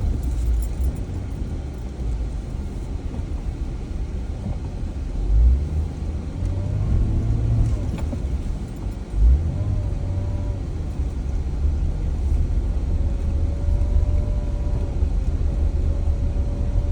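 Off-road SUV heard from inside the cab while driving a dirt trail: a steady low engine and road rumble, with two heavier thumps about five and nine seconds in.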